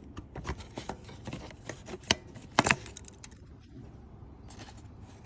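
Metal hand tools clicking and clinking irregularly while bolts are undone, with two louder knocks about two and two and a half seconds in.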